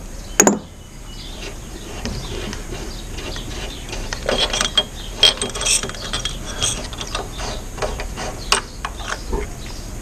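Hand tools and small metal engine parts clicking and clinking as a part is worked loose on a small Honda GX200 engine, with irregular sharp knocks: a loud one about half a second in, others around the middle and a sharp one near the end.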